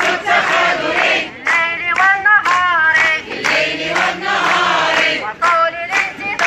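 A crowd of protesters chanting slogans together in loud, repeated rhythmic phrases.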